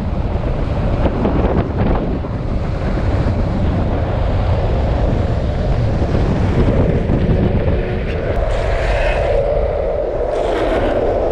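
Wind rushing over the microphone and longboard wheels rolling fast on asphalt. Near the end come two short squeals of urethane wheels sliding as a rider throws a toeside slide.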